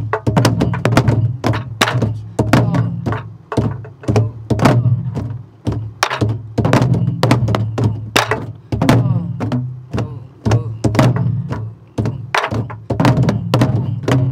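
A group of soribuk (Korean pansori barrel drums) played together in the quick jajinmori rhythm. Deep booming strokes of the open hand and stick on the drumheads mix with sharp clacks of the stick on the wooden shells, a few strokes a second.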